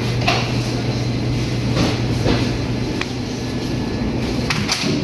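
Supermarket aisle background: a steady low hum, with several short clicks and rustles on top.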